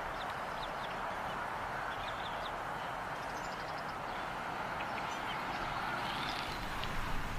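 Bald eagle nestling giving faint, high peeping chirps in a few short clusters as it is fed, over a steady rushing background noise.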